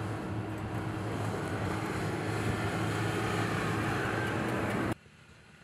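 Jeep Gladiator Mojave pickup driving fast on a sandy dirt track: the engine runs steadily under tyre and wind noise. About five seconds in, the sound cuts off suddenly and only a quieter wind hiss remains.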